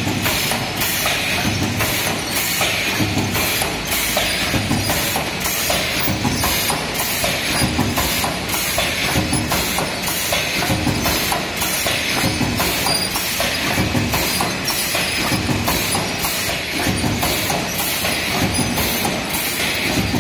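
Stainless-steel rice-patty forming machine running, with a rhythmic low thud about once a second as each stroke presses out patties, over a steady rattle and clicking of the wire-mesh conveyor belt.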